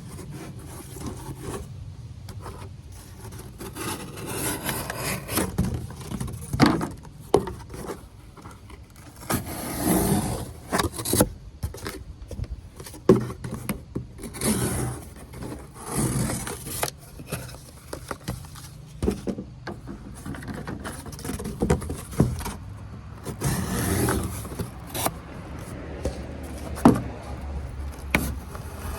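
Knife blade scraping and cutting into wood in repeated, uneven strokes about a second long, with a few sharp clicks.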